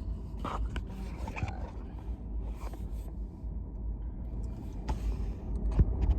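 Low, steady rumble inside a car cabin in slow stop-and-go traffic, with a few light scrapes and clicks close to the microphone.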